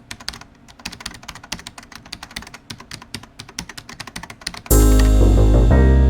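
Rapid, irregular clicking of keyboard typing. About four and a half seconds in, much louder sustained keyboard music begins suddenly.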